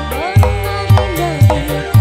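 Band music led by kendang hand drums, with deep bass drum strokes about twice a second, over keyboard and electric guitar.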